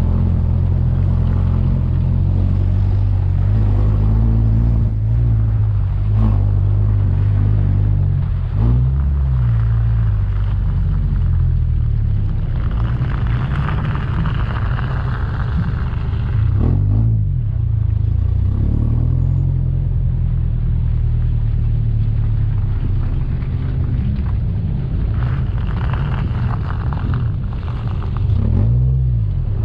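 Off-road vehicle's engine running low and steady while driving a rough dirt track, with brief revs about nine, seventeen and twenty-nine seconds in. A rushing hiss rises twice over the engine, about halfway through and again near the end.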